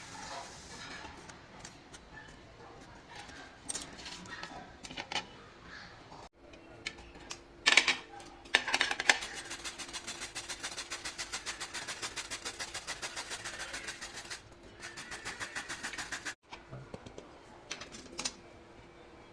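Kitchen utensil work: scattered clicks and knocks of a utensil against a vessel, two sharp knocks, then a fast rhythmic scraping of about five strokes a second lasting several seconds, with a short pause before it resumes.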